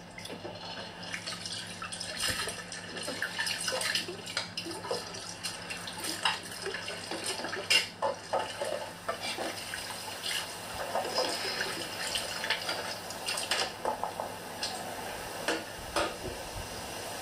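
Washing up at a kitchen sink: tap water running with dishes and utensils clinking and knocking now and then, heard through a screen's speaker.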